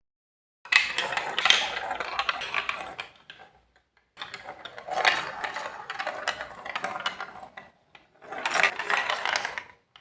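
Marbles rolling and clattering down a plastic Lego Duplo block marble run. There are three separate runs of dense, rapid clicking, each lasting a few seconds before stopping.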